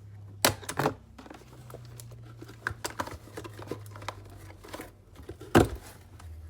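Packaging being cut and pulled apart: crinkling plastic and rustling cardboard, with a couple of sharp loud knocks about half a second in and a louder one near the end.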